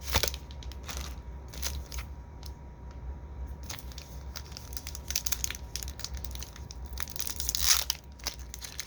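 Foil wrapper of a Pokémon Vivid Voltage booster pack crinkling and tearing as it is opened: irregular crackles, with a louder rip of noise about three-quarters of the way through.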